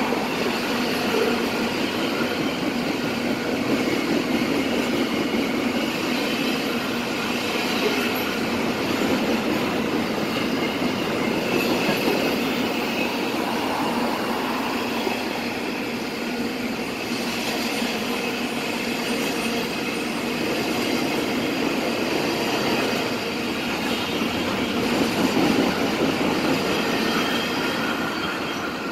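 Canadian National double-stack container freight train passing close below: a steady rumble of steel wheels running on the rails, with faint high squealing tones over it. It fades right at the end as the last cars go by.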